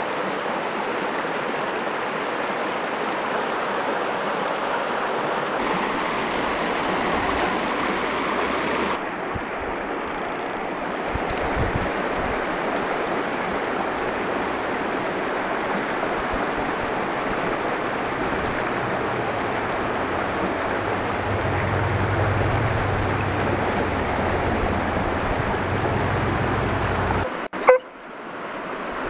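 Mountain stream rushing over rocks, a steady, even sound of running water. A single brief knock near the end.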